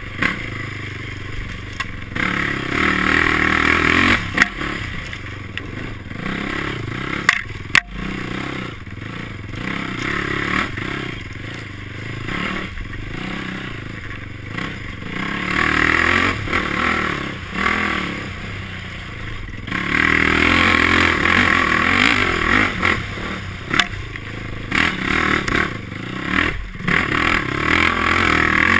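Honda sport quad's engine revving up and falling back as it is ridden hard over a rough trail, with rattles and a couple of sharp knocks from the machine over bumps about a quarter of the way in. In the last third the engine runs louder and steadier under hard acceleration.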